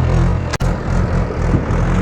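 Heavy diesel machinery running steadily: the engine of the backhoe loader and tractor hums low and constant. The sound breaks off sharply for an instant about half a second in.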